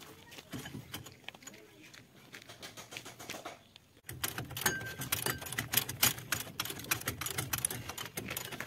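Socket wrench working a bolt on a Kubota harvester's track roller frame: quiet scattered metal clicks at first, then from about four seconds in a fast, irregular run of sharp metallic clicks and clinks.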